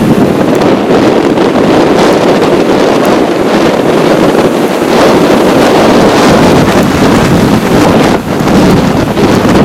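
Strong, gusting storm wind buffeting the microphone over heavy surf breaking on the shore. The noise is loud and continuous, with a short lull near the end.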